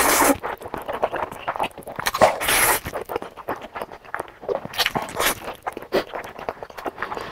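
Mouth slurping up a big mouthful of jjajangmyeon (black bean sauce noodles), with two long loud slurps, one at the start and one about two seconds in, and wet chewing and lip-smacking clicks in between.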